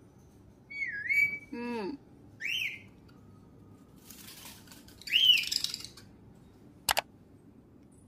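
Pet parrot whistling a few short, separate notes: a dipping whistle, a quick falling call, then arched whistles, the loudest about five seconds in. A sharp click comes near the end.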